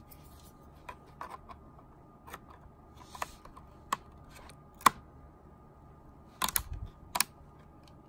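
Small plastic and metal clicks and taps as a 4 GB laptop SO-DIMM memory stick is seated at an angle in its slot and pressed down flat so the slot's side clips snap over it. The clicks are scattered and quiet, with a sharper click about five seconds in and a quick group of clicks near the end.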